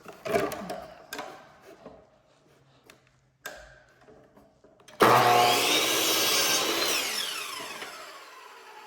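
Power miter saw cutting wood trim: handling clicks first, then about halfway through the motor starts suddenly and loud as the blade goes through the wood. After the cut the blade whines down in falling pitch as it coasts to a stop.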